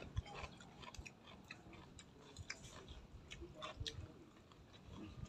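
A person chewing raw vegetables by mouth: faint, irregular crunching clicks.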